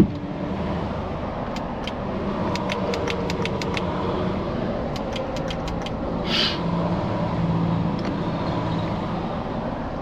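2012 Hyundai Elantra's engine idling steadily, with a run of light clicks about two to five seconds in and a short hiss a little past six seconds.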